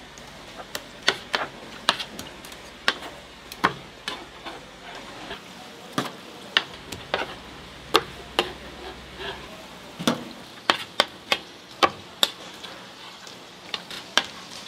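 Irregular sharp taps and clicks of kitchen utensils at work, about one or two a second, over a faint steady hiss.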